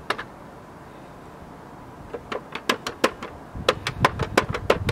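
Keys of a toy Dora the Explorer electronic cash register being pressed. After a lone press near the start, the presses come in a rapid run of short blips from about two seconds in, about five a second toward the end.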